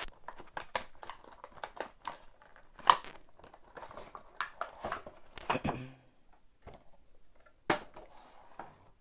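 A Funko Pop window box being opened by hand: cardboard and plastic packaging crinkling and tearing, with scattered sharp clicks, the loudest about three seconds in. It goes quieter after about six seconds, with one more sharp click near the end.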